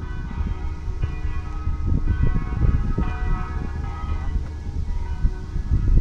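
Wind rumbling and buffeting on the microphone, with many-toned bells ringing in the background.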